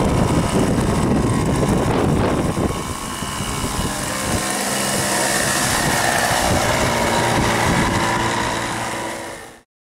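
RC model airplane engine running steadily, heard through heavy wind buffeting on the microphone, until the sound cuts off abruptly near the end.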